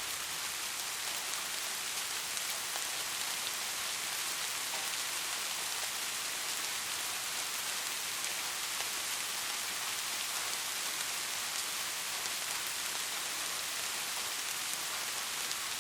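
Steady soft rain falling on a surface, an even hiss with fine scattered drop ticks.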